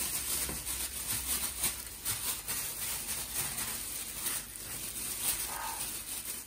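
A plastic bag worn over a hand rustling and crinkling, with irregular soft pats, as it presses a sticky sweet mixture flat in a metal tray, over a low steady hum.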